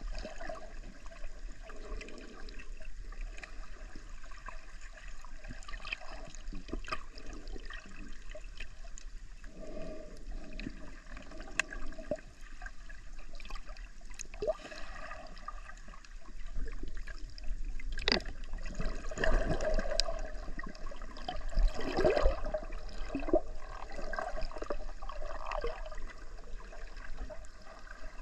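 Muffled water sloshing and gurgling as heard by a camera just under the surface, with scattered sharp clicks; it grows louder and busier in the second half.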